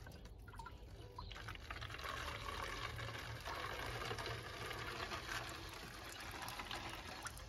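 Fresh milk poured in a thin stream from a plastic jug into a plastic bottle, a steady trickling fill that sets in about a second in.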